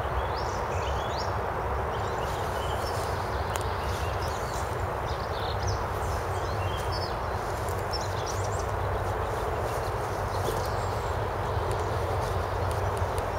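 Small birds chirping and calling in short, quick rising and falling notes, scattered through, over a steady rushing background. Footsteps crunch in dry leaf litter, with a cluster of crackles near the end.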